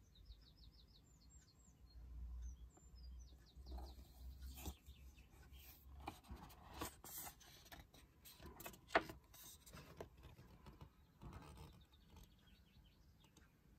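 Paper pages of a book being turned and handled, with soft rustles and a sharp tap about nine seconds in. Faint bird chirps come through near the start and again near the end.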